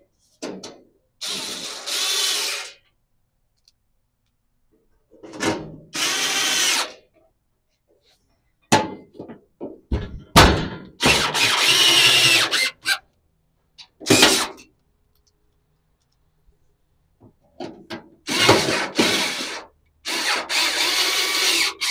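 Small cordless drill-driver run in about six short bursts of a second or two each, with brief clicks between, as it drives screws along the flange of a transmission tunnel panel.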